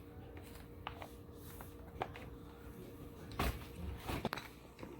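Light clicks and knocks of plastic toy kitchen pieces being handled, a few single taps and a louder clatter about three and a half seconds in, over a faint steady hum.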